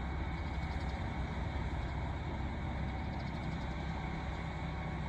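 Diesel engines of KiHa 261 series express diesel multiple units running at a standstill or crawl, a steady low rumble.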